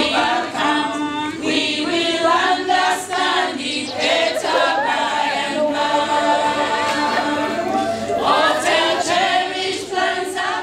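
A group of voices singing unaccompanied in harmony, hymn-like, with some long held notes.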